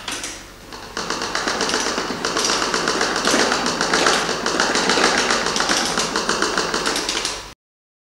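Rapid, dense clicking and tapping, about ten clicks a second, starting about a second in and cutting off abruptly to silence near the end.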